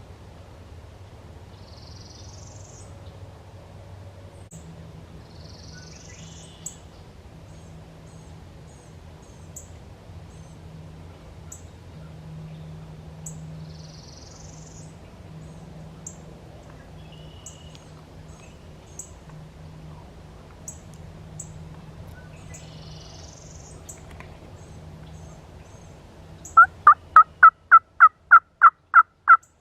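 Faint outdoor background with a few distant songbird phrases, then near the end a loud run of about a dozen evenly spaced turkey yelps, about four a second.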